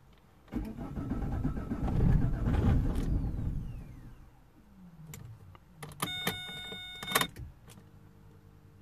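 Vauxhall Vectra's 1.9 CDTi (Z19DT) diesel engine cranking on the starter for about three seconds; it tries to fire but doesn't catch, and cranking stops. This is the no-start for which the rail pressure sensor logs fuel rail pressure too high (P0088). A short electronic beep follows a couple of seconds later.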